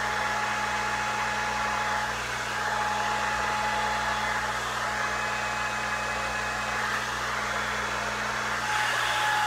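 Hair dryer with a diffuser attachment running steadily: a constant rush of air with a steady motor whine.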